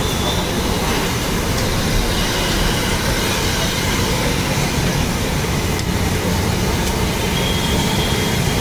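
Moong pakodas deep-frying in a large kadhai of hot oil, a steady loud sizzle over a constant low rumble.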